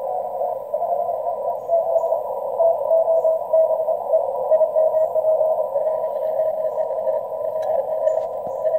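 Weak Morse code signal, an on-off keyed tone, received on the 20-metre band through an mcHF transceiver's narrow CW filter and heard under a steady hiss of band noise. The signals are really weak in poor band conditions.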